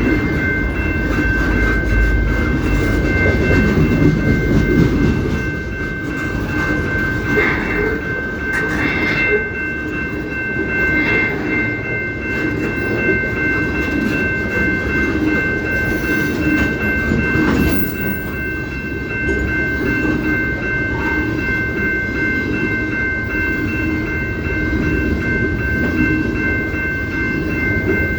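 Canadian Pacific train rolling past, a steady heavy rumble with wheel clatter, and a steady high-pitched whine of several tones held throughout.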